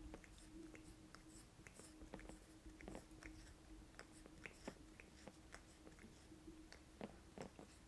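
Faint rustles and soft irregular clicks of long acrylic nails scratching and stroking through a Maine Coon cat's fur.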